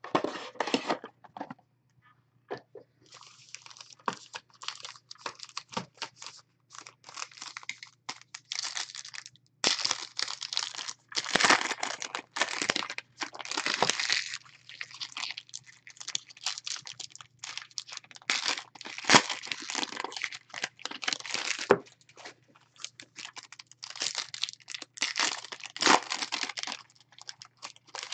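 Foil trading-card packs being torn open and their wrappers crinkled, in irregular bursts, as the cards are handled. A faint steady low hum lies underneath.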